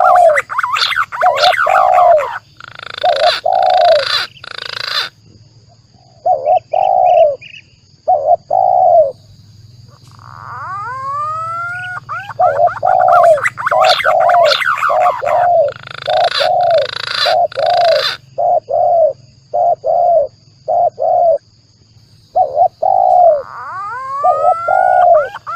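Spotted doves (tekukur) cooing in runs of short, low notes, mixed with the rising whistles of green pigeons (punai). The calls come in dense bursts with short gaps between them. This is a bird-lure call track for drawing in both species.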